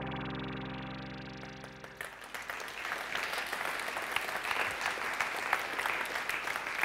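A held synthesizer chord from the end of a demo reel soundtrack fades out over about two seconds, then a large audience applauds.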